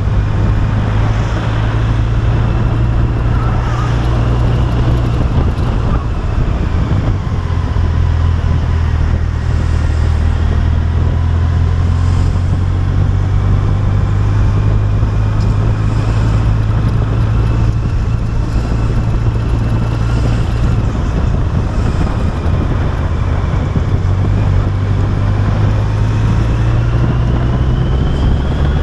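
Yamaha FJR1300 motorcycle's inline-four engine running steadily at low road speed, with wind rushing over the microphone. Near the end a thin whine rises in pitch as the bike picks up speed.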